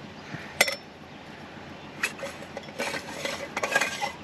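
Dishes and small objects clinking and knocking as they are handled: a sharp clink about half a second in, another near two seconds, then rustling with small knocks over the last second or so.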